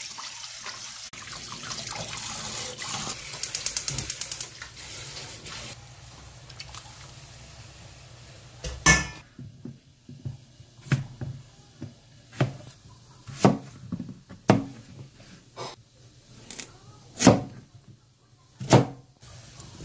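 Tap water running into a stainless steel bowl while raw chicken is rinsed by hand, for about the first six seconds. After that, a series of sharp knife chops on a cutting board, a second or so apart, as a carrot is sliced.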